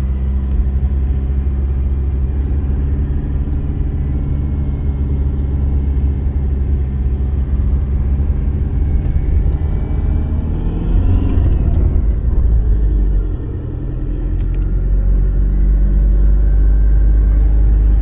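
Car engine and road noise heard from inside the moving car: a steady low rumble with engine hum. The engine note rises and falls about eleven seconds in, and the sound dips briefly a little after.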